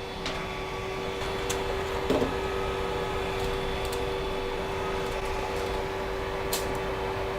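Creality CR-10S Pro 3D printer running with a steady mechanical hum and a held mid-pitched tone. A few faint clicks come through, one about a second and a half in and another near the end.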